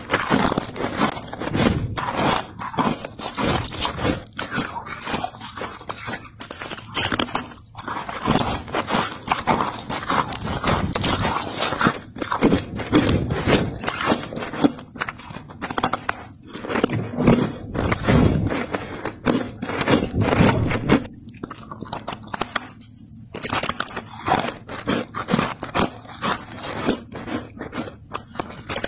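Thick freezer frost being crushed close to the microphone: a dense run of squeaky crunches, many a second, with brief gaps between handfuls.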